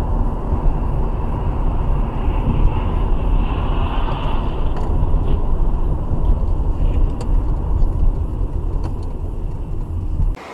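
Steady road noise from inside a moving car: a continuous low rumble of tyres and engine, with no impact heard.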